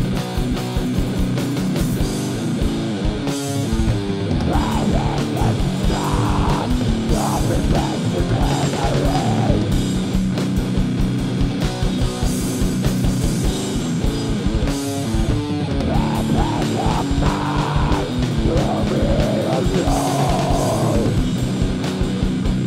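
Loud heavy rock music with electric guitars and a steady drum beat.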